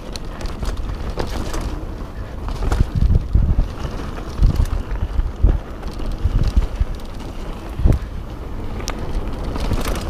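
Mountain bike rolling fast down a dirt trail: the tyres rumble, wind buffets the camera's microphone, and the bike rattles, with several sharp thumps as it hits bumps.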